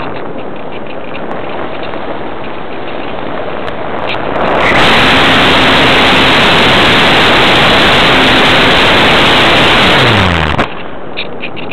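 Airflow rushing over the onboard camera of a Parkzone Radian electric RC glider in flight, then the electric motor and propeller come on about four and a half seconds in: a much louder rushing with a faint steady hum for about six seconds. The hum falls in pitch as the motor winds down, and the loud noise cuts off suddenly, leaving the softer wind rush of gliding.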